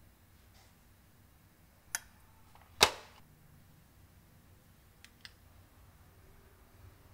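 A metal teaspoon clinking against a small ceramic bowl as salt and ground pepper are spooned in: two sharp clinks about a second apart, the second louder with a short ring, then two faint ticks a couple of seconds later.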